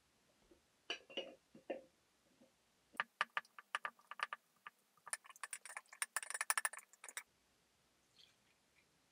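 Glass clinking at a glass teapot and its glass tea infuser: a few soft knocks, then a fast run of sharp clinks and taps.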